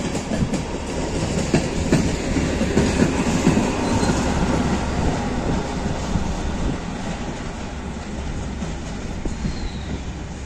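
Small diesel shunting locomotive hauling a passenger coach past, its engine a steady low drone under irregular wheel clatter over rail joints and points. The clatter thins out and the whole sound fades in the second half as the train moves away.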